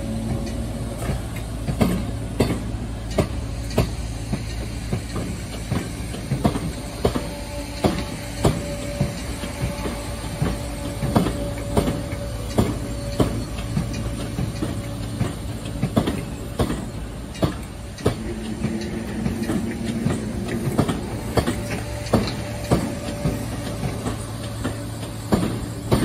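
A train passing, its wheels knocking over rail joints in a steady run of clicks, often in pairs, one or two a second, over a continuous low rumble.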